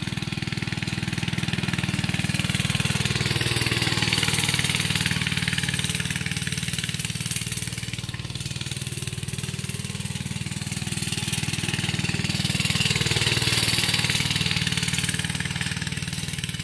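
Coleman CT100U minibike's small single-cylinder four-stroke engine running as the bike is ridden around, swelling louder twice and easing off in between.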